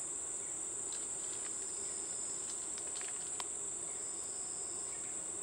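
Steady, high-pitched drone of rainforest insects, with a few faint ticks and rustles in dry leaf litter.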